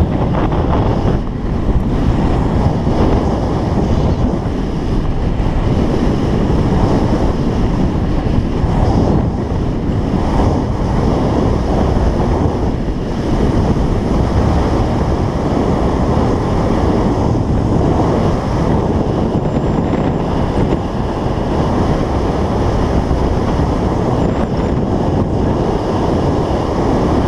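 Wind rushing over a GoPro's microphone during a fast downhill ski run, mixed with skis scraping over groomed snow; a loud, steady rush that swells and eases a little with the turns.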